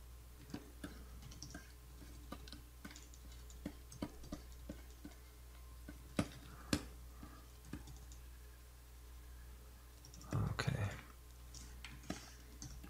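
Scattered, irregular clicks and taps of computer keyboard keys during digital painting, over a steady low electrical hum. A short, louder noise comes about ten seconds in.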